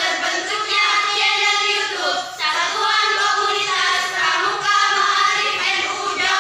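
Young voices singing a melody together, with a short break between phrases about two and a half seconds in.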